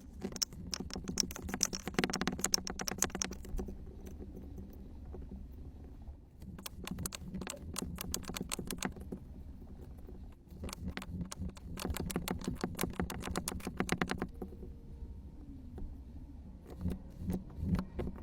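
Sand being handled and crunched, giving rapid crisp crackles in four spells of a few seconds each.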